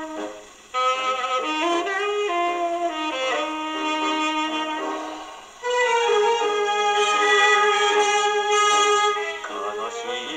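Instrumental break of a 78 rpm Japanese popular-song record (King C-1452) played on an acoustic portable phonograph with a steel needle: a band plays a melody with no singing, thin and with little bass. The music dips briefly between phrases about half a second in and again near the middle.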